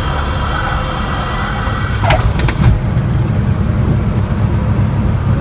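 Cessna 172M landing: a steady low rumble of engine and airflow, with a short falling squeal and a few sharp chirps about two seconds in, as the main wheels touch the runway. The rumble then carries on through the rollout.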